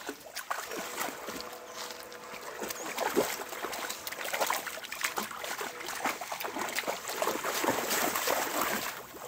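Dogs wading through shallow river water, with irregular splashing.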